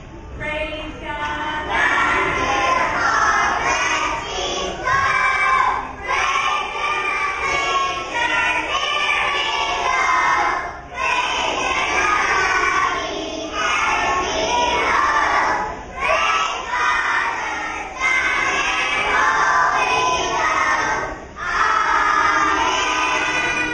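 A group of preschool children singing a song together, line by line, with short breaks between phrases.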